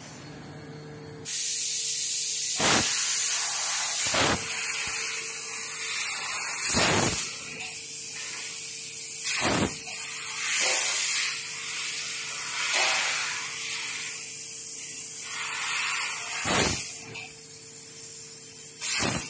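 Fiber laser cutting machine cutting sheet steel: a steady hiss of assist gas at the cutting head starts about a second in, with sharp cracks about half a dozen times, over a steady machine hum.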